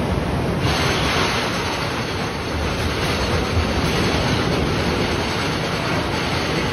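Wooden roller coaster train rolling into the station along the track as it returns from its run, a steady noise of wheels on track that picks up about half a second in and goes on as the train pulls in.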